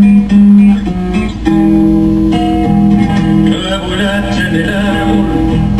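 Solo classical guitar played fingerstyle, with low notes plucked and left ringing under higher picked notes.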